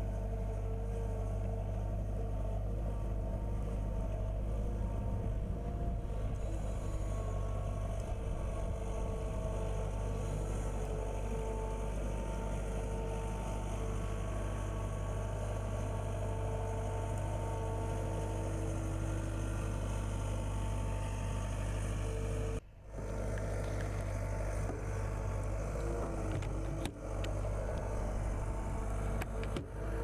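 John Deere 320 skid steer loader's diesel engine running steadily under work, with a few brief dips in the sound in the last third.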